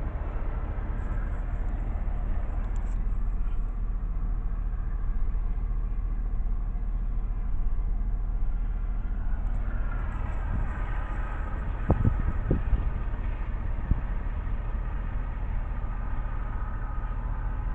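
Freight train cars rolling past with a steady low rumble, and a few sharp clanks about twelve seconds in.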